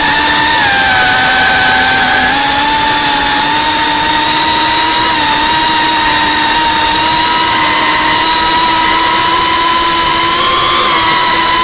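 Geprc Cinelog 35 FPV drone's brushless motors whining steadily over a hiss of propeller wash. The pitch drops about half a second in and climbs back up about two seconds in, as the throttle changes.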